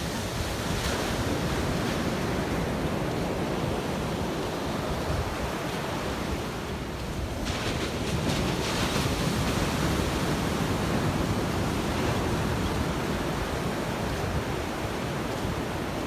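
Ocean surf washing up a sandy beach, small waves breaking and foaming onto the shore in a steady rush. The rush grows louder a little past halfway through. Wind rumbles on the microphone underneath.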